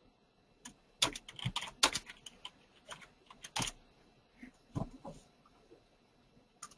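Irregular clicks and taps of a computer keyboard and mouse. There is a quick cluster in the first half and a few scattered clicks later.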